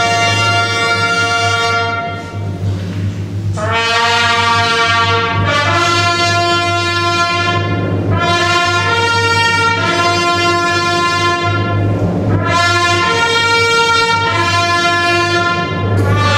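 Brass music played in long, held chords. The chords change every second or two, with a short break about two seconds in.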